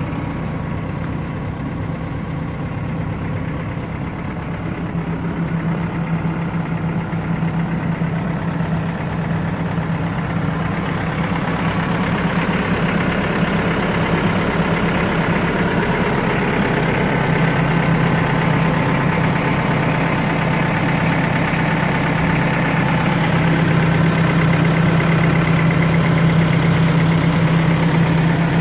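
Diesel engine of a Cat 430D loader backhoe running steadily, growing gradually louder.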